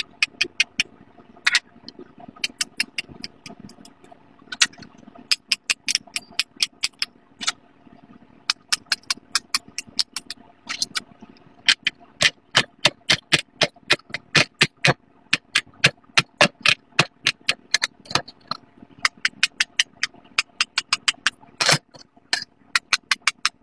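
Silicone pop-it fidget toys (five poppets) being popped bubble by bubble by hand: a long string of quick, sharp pops, at times several a second, in runs with short pauses between.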